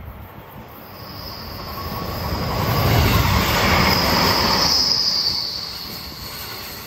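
JR Kyushu 783-series electric limited express passing close by on a curve: the rumble of wheels on rail builds to a peak about three seconds in and eases off as the cars go by. A high, steady wheel squeal rides over it.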